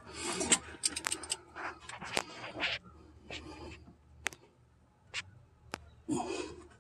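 A socket wrench turning an engine pulley over to roll a stretch-fit AC belt onto its pulley, with a few sharp metal clicks and scrapes, and a person's heavy breaths from the effort.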